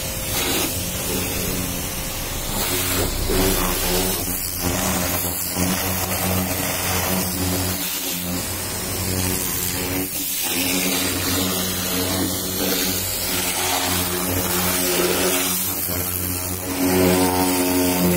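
Pressure washer running: a steady drone from its motor and pump under the hiss of the water jet as the lance sprays into a car's wheel arch and tyre. The drone drops out briefly about ten seconds in.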